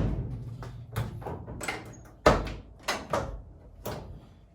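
Door of a 1967 Pontiac Firebird being worked on its freshly rebuilt hinges: a string of short latch clicks and knocks, the loudest about two seconds in.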